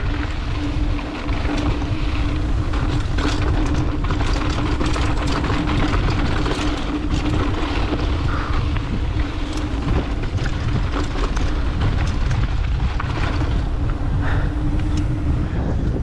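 Mountain bike descending a dirt trail: wind rushing over the microphone and tyres rumbling, with frequent rattles and clatter from the bike over bumps and a steady hum underneath.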